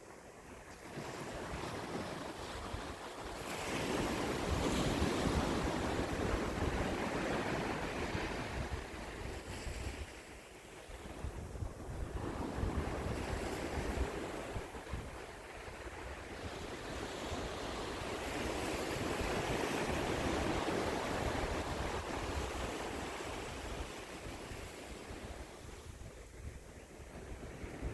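Sea waves washing onto the shore, the surf swelling and falling back in slow surges, with wind rumbling on the microphone.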